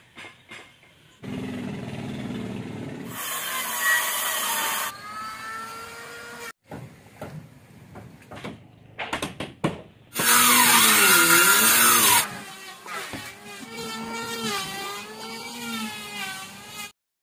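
A small motor running in several short clips with abrupt cuts, its pitch rising and falling as it speeds up and slows down. The loudest burst comes about ten seconds in.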